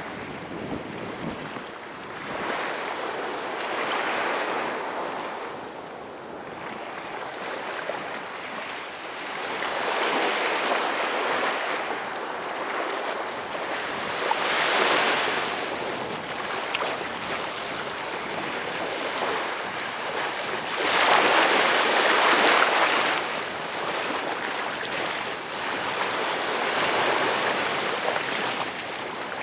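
Small waves washing up onto a sandy beach and drawing back, each wash swelling and fading every four to six seconds, the strongest about three quarters of the way through.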